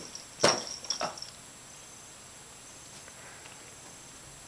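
A kitten at play: a short rustling knock about half a second in and a softer one about a second in, then quiet room tone.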